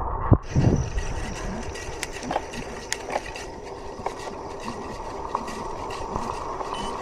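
Gravel bike riding over a rough trail: steady tyre noise with scattered rattles and clicks from the bike, and a knock just after the start.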